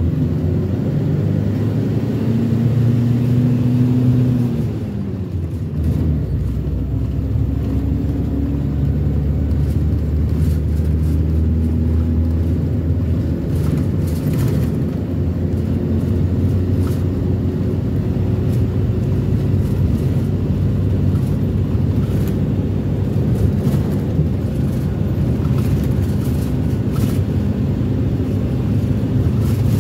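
Minibus engine and road noise heard from inside the moving cabin, a steady low drone. The engine pitch rises and then drops about four to five seconds in, then holds fairly even.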